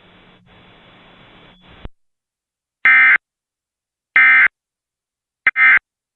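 Emergency Alert System end-of-message tones: three short, loud bursts of the SAME digital data screech, about a second and a half apart, closing out a required monthly test alert. Before them, about two seconds of faint hiss.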